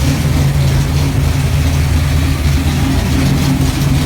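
Freshly rebuilt 408 cubic-inch Windsor small-block Ford V8 running steadily at idle.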